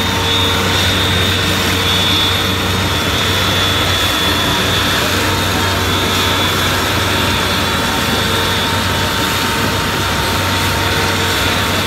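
Two Sonalika diesel tractors hitched back to back, both engines running hard under heavy load as they pull against each other in a tug-of-war. A loud, steady engine noise with no let-up.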